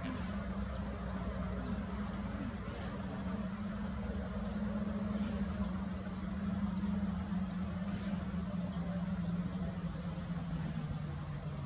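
A steady low motor hum with a rumble beneath it, dipping slightly in pitch near the end, with faint high ticks scattered over it.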